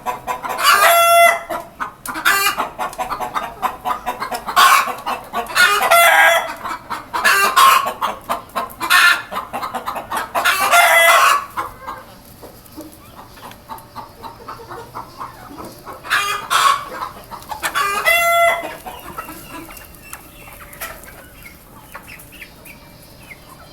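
A flock of desi chickens clucking and squawking, with a rooster crowing. The calls come thick and loud through the first half, then thin out to occasional clucks, with another loud call about three-quarters of the way through.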